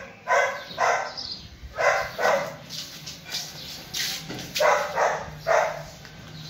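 A dog barking repeatedly, a run of short sharp barks, several coming in quick pairs.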